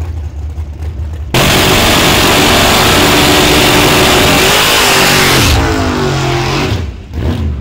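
Drag racing car at full throttle: a low engine rumble, then a sudden very loud engine run about a second in that holds for about four seconds, then falls in pitch and fades away.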